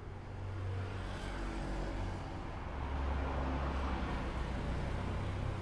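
Low rumble of a motor vehicle's engine running, building about a second in and then holding steady.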